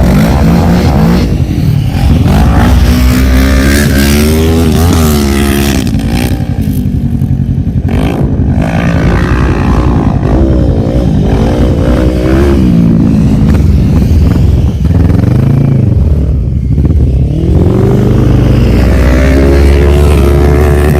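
ATV engines running loud, revving up and down over and over, the pitch rising and falling every second or two.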